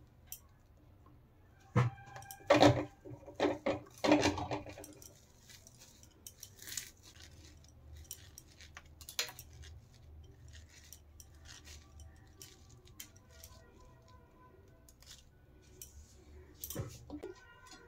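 Hands and a spatula working sticky jaggery-coated puffed rice in a metal pan, with a few sharp knocks against the pan in the first few seconds and then scattered light clicks and crackles as the grains are scooped and pressed into balls.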